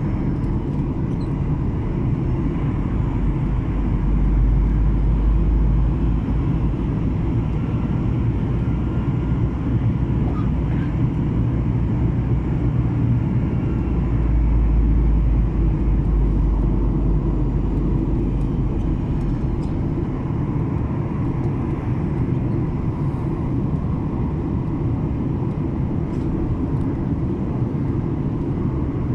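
Steady jet engine and airflow noise inside the cabin of a Skymark Boeing 737-800 in flight, a low rumble with a faint steady tone, swelling louder twice.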